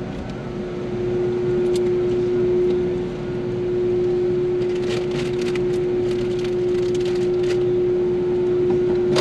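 Ferry machinery running: a steady drone with one constant humming tone over a low rumble, and a few light clicks about halfway through.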